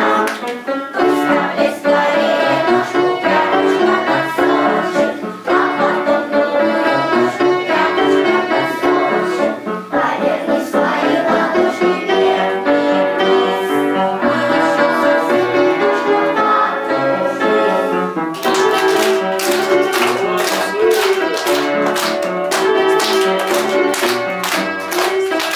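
Lively music with a steady beat. About two-thirds of the way through, sharp, evenly spaced beats join in.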